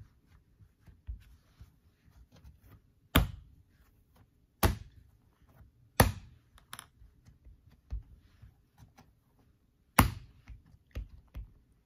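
A lump of moist clay slapped and patted flat with bare palms on a work table. There are four sharp slaps, about 3, 4.5, 6 and 10 seconds in, with lighter pats and taps between.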